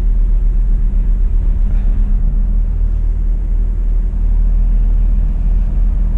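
Lorry's diesel engine running at low speed with a steady low hum, heard from inside the cab as the truck creeps forward.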